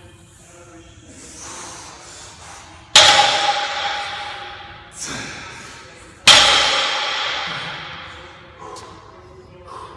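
Loaded barbell with metal weight plates set down on the floor twice, each clang ringing on and dying away over about two seconds, with a lighter knock between them.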